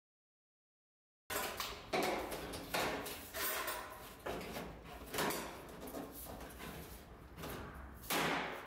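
Protective PVC plastic film being peeled and crinkled off painted metal gable trim, in a string of irregular rustling and tearing strokes starting about a second in.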